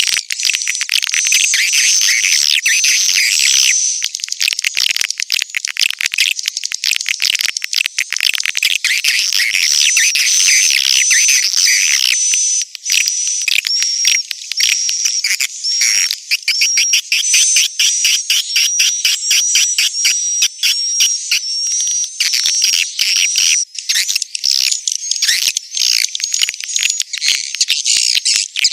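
Edible-nest swiftlet calls played as a swiftlet-house lure sound: continuous high-pitched twittering with fast runs of short chirps and clicks, several a second, without a break.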